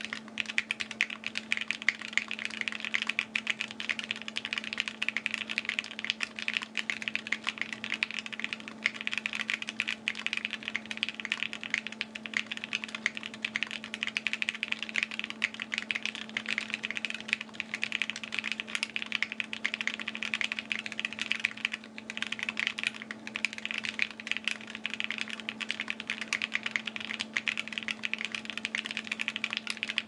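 Fast, continuous typing on a Wind X mechanical keyboard with Gateron KS3 switches on a carbon fiber plate and GMK ABS keycaps: dense clacking keystrokes in a typing-sound test, over a faint steady low hum.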